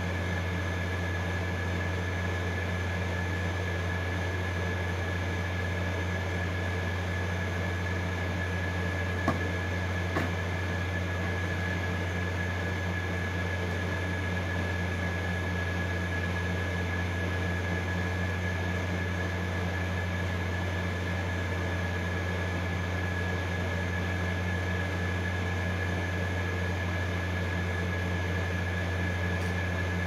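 Steady low machine hum with a thin high whine held over it, unchanging throughout. Two small clicks about nine and ten seconds in.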